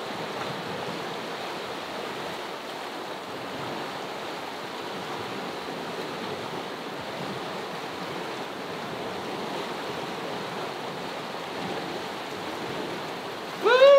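Fast-flowing mountain river rushing over rocks, a steady, even wash of water noise.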